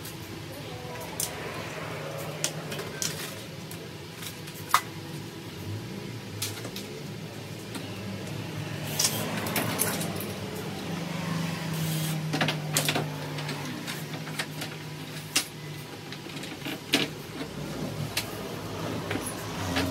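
Scattered light clicks and knocks from handling tools and materials, over a low steady hum.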